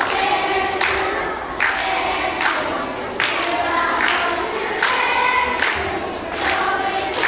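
A group of children singing together in unison, with sharp, evenly spaced accents about once a second.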